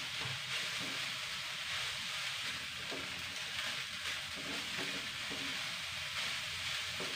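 Rice frying in a wok with ground spice paste, sizzling steadily as a wooden spatula stirs and scrapes it, with a few light taps of the spatula against the pan.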